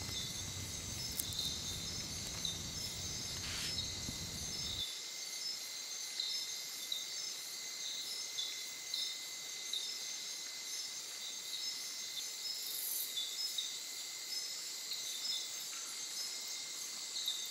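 Night-time rainforest insect chorus: a steady high-pitched trilling with a short chirp repeating about once a second. A low rumble underneath stops abruptly about five seconds in.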